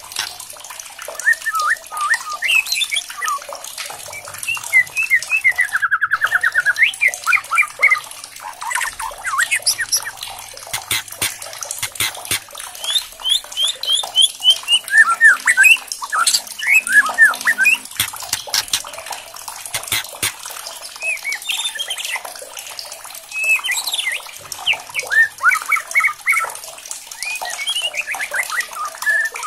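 White-rumped shama singing in quick, varied phrases of sliding whistles and trills, with a fast buzzy trill about six seconds in. Many sharp clicks run through the song.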